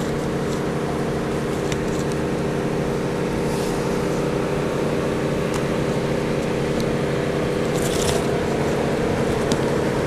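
A steady motor drone with several even tones runs throughout, the kind of hum an idling engine, generator or cooler fan makes, with a few light clicks and taps on top.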